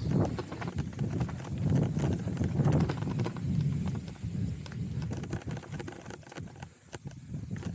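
Hardtail mountain bike rolling fast down a rocky trail: a rapid, uneven clatter of knocks and rattles as the tyres and frame take the rocks and dirt, with a rumble of tyre noise. Near the end the clatter thins to a few separate clicks.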